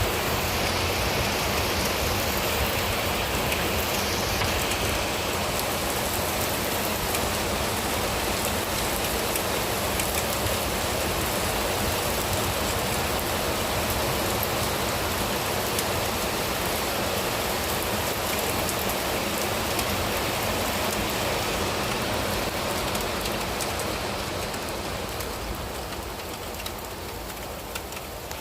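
Steady rain falling, a dense even hiss of drops, growing quieter over the last few seconds.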